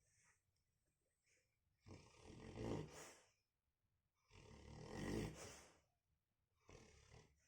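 Labrador retriever snoring in its sleep: two long snores followed by a shorter one near the end, with quiet pauses between breaths.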